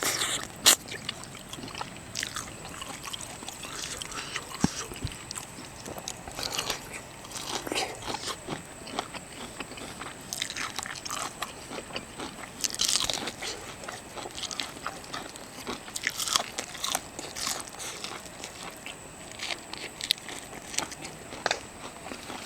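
A person eating seafood close to the microphone: biting and chewing, with scattered crunches and short clicks.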